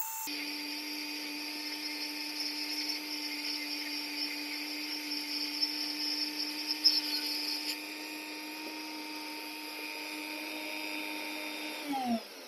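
Flex-shaft rotary tool running steadily with a burr grinding into a wooden piece, the sound swelling and catching as it bites. Near the end the tool is switched off and its whine drops in pitch as it spins down.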